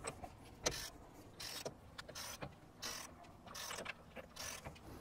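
Faint, evenly spaced short rasping strokes, about one every three-quarters of a second, from hand-tool work on the Explorer's front axle nut.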